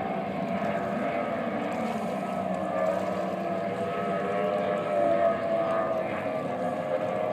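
Several racing motorboat engines running at speed together: a steady, high-pitched drone of overlapping engine notes that waver slightly.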